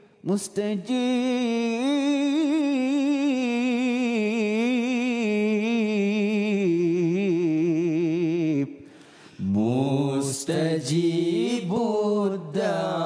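A male solo voice sings a long, ornamented Arabic marhaban line, its pitch wavering in tight turns. About nine seconds in he breaks briefly for breath, then starts a new phrase at a lower pitch.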